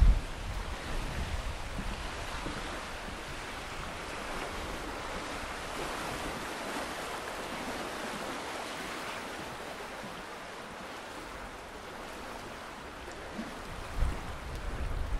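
Wind rushing through woodland trees, a steady hiss that swells and eases, with low gusts buffeting the microphone at the start and again near the end.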